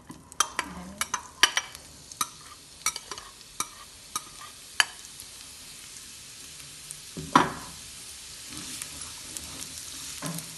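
Chopped onions frying in hot oil in a pan: sharp crackling pops as they land, then a steadier sizzle that grows near the end as a spatula stirs them. A single loud knock about seven seconds in.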